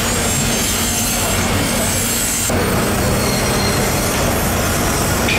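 Water running from a hose over a tuna's body, a steady rushing hiss with a low hum underneath. The sound changes abruptly about two and a half seconds in.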